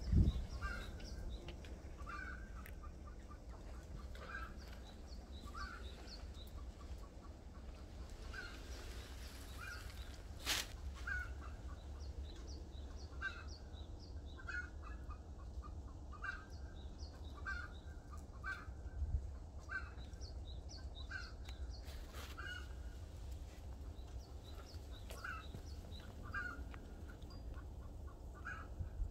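Short bird calls repeating about once a second, fowl-like, over a steady low rumble of wind.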